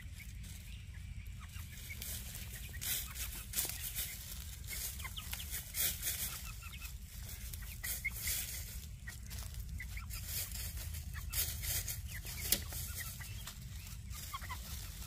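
Young backyard chickens clucking softly as they forage, with scattered crackles of pecking and scratching in dry leaf litter close by.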